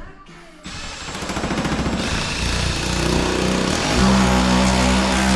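Cordless drill running against a corrugated steel ceiling panel overhead: a rapid rattle about a second in, then the motor climbs to a steady whine.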